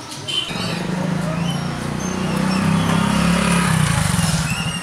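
A motorcycle engine running slowly at close range, a steady drone that starts about half a second in and grows a little louder partway through. Short high chirps sound above it.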